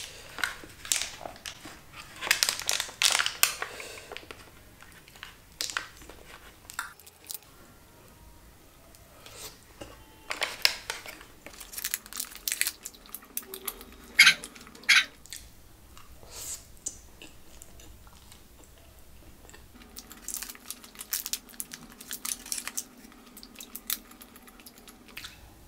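Close-miked chewing and mouth sounds of a person eating sauced loaded fries, with a metal fork scraping and crinkling in an aluminium foil tray. The sounds come as irregular clusters of clicks and crackles, busiest at the start, in the middle and a little before the end.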